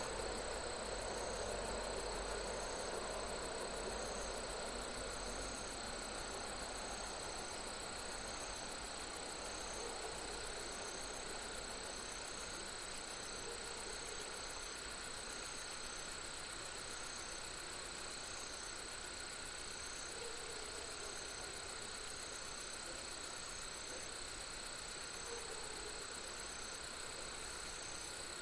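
Crickets and other night insects chirping in a steady chorus. There is a fast, continuous high trill, a steady high-pitched singing, and a short chirp repeated about once a second, all over a soft even hiss of background noise.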